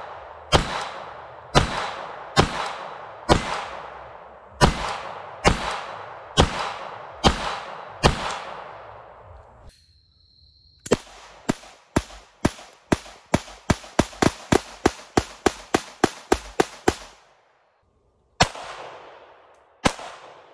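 Browning 1911-22 .22 LR pistol shots at a steady pace of about one a second, each with a long echo trailing off. After a short pause comes a faster string of about four shots a second for some six seconds as two pistols fire together, then two single shots near the end.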